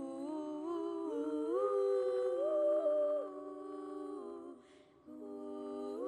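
Three girls' voices singing unaccompanied in close three-part harmony, holding and stepping between sustained notes. They break off for a breath about four and a half seconds in, then come back together.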